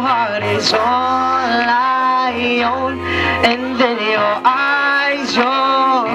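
A song playing: a singing voice holding and sliding between long notes over a steady bass accompaniment.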